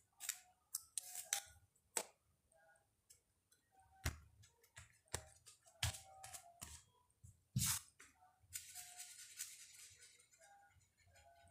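Paper being worked by hand on a table: scattered taps and clicks as glued paper pieces are pressed down and handled, then a stretch of rubbing and rustling about eight and a half seconds in as the sheet is smoothed.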